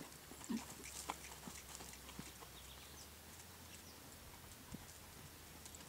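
Horse's hoofbeats on sandy arena footing: faint, uneven thuds and knocks as it trots loose, most of them in the first couple of seconds.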